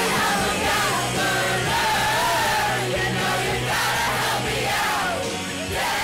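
Music with a singing voice over a steady bass line.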